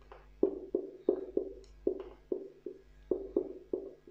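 Marker on a whiteboard during writing: about a dozen irregular sharp taps as the pen strikes the board, each with a short ring from the board.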